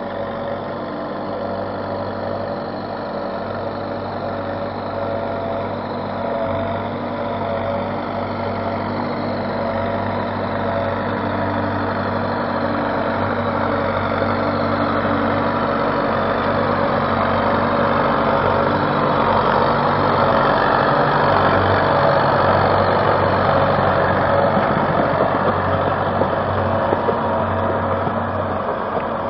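A vehicle engine running steadily, gradually growing louder through most of the stretch.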